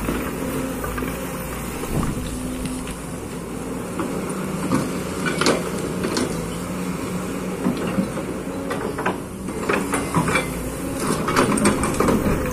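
Kobelco excavator's diesel engine running steadily, with scattered sharp knocks, several close together near the end.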